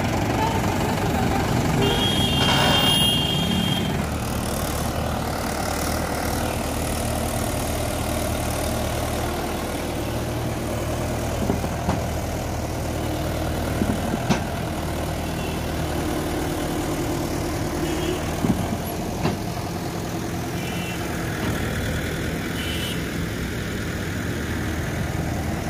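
Mahindra 575 DI tractor's four-cylinder diesel engine running steadily under load as it drags a loaded brick trolley through mud. A short high tone comes about two seconds in, and a few sharp knocks come later.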